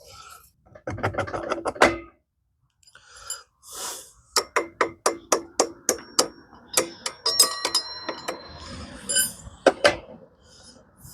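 Metal tapping and clanking while a mini bike's front wheel and axle are refitted. A quick burst of rapid clicks comes first, then a run of sharp hammer taps, about three or four a second, with some taps ringing metallically, and a last single strike near the end.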